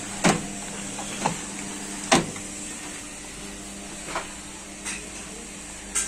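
Whirlpool front-loading washing machine running while it takes in water: a steady hum with several sharp knocks and clunks, the loudest about two seconds in.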